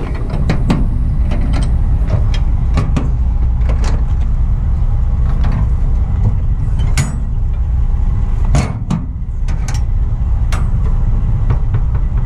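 Steel door-handle latches on a shipping container's locking bars clanking and clicking as they are worked by hand, with sharper metal knocks about seven and eight and a half seconds in, over a steady low rumble.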